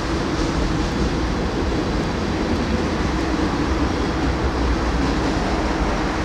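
Freight train's tank cars and a covered hopper rolling past, a steady rolling noise of wheels on rail, mixed with the tyre noise of cars passing on the road close by.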